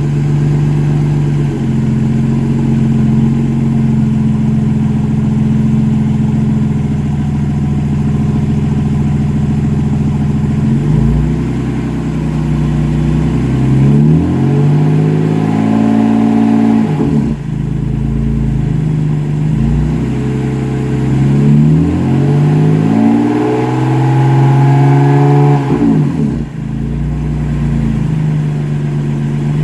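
BMW E39 530i's M54 3.0-litre straight-six running through an exhaust with the muffler deleted. The note is steady for about the first ten seconds, then climbs slowly twice over several seconds, each climb cutting off in a sharp drop in revs, as when pulling hard and then shifting or lifting off.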